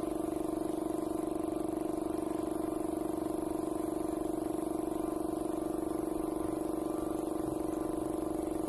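A motor running steadily: an even hum with a fast, regular pulse that holds the same speed throughout.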